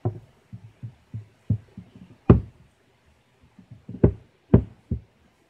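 Dull wooden knocks and thumps on a homemade wooden box trap as its trigger stick is worked, about ten irregular strikes, the loudest a little over two seconds in and two more strong ones near the end.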